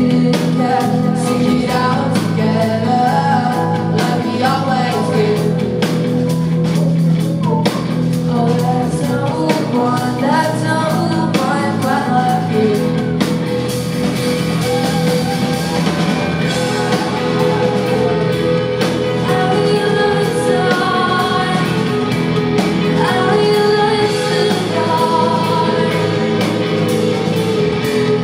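Live rock band playing: a woman singing lead over electric guitars, bass guitar and drums, heard from the audience in a concert hall.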